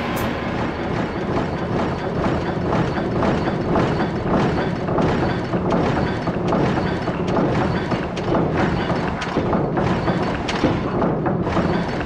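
Large gears of a mechanical drum machine turning, giving a steady run of irregular clanks, knocks and ratchet-like clicks.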